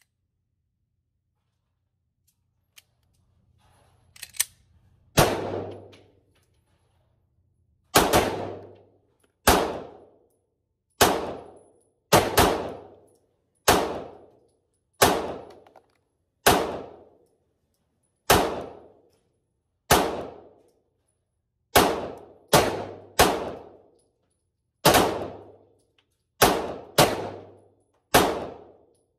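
Canik TP9 Elite SC subcompact 9mm pistol fired at a steady pace, about eighteen shots one to two seconds apart, some in quick pairs, each with a short echo. The shooting starts about five seconds in.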